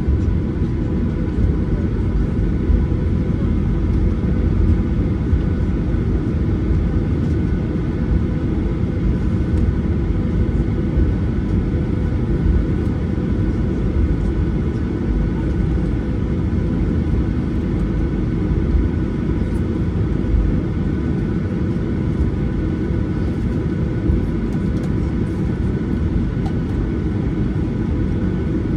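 Cabin noise of a Boeing 737-800 taxiing: a steady low rumble from the rolling gear and the CFM56-7B engines at taxi thrust, with a few steady whining tones over it.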